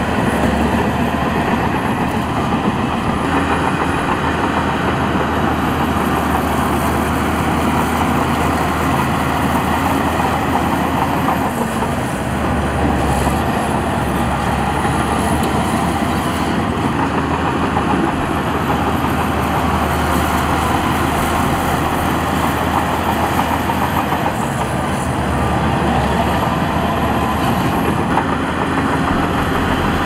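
Heavy diesel earthmoving machinery running steadily, with a faint high whine drifting slowly up and down.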